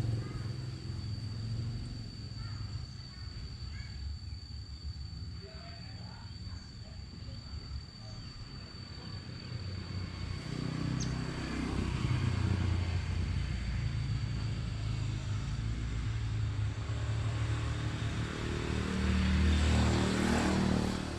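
Outdoor background with a low rumble that swells twice, about halfway through and again near the end, over a thin steady high whine.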